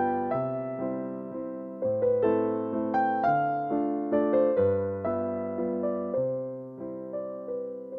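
Background music: a gentle piano piece, a melody of ringing, fading notes over lower notes that change about every second and a half.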